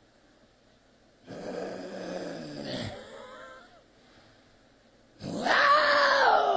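A man's wordless cries into a handheld microphone. About a second in comes a falling groan, and from about five seconds in a loud, high wail that slides steadily down in pitch.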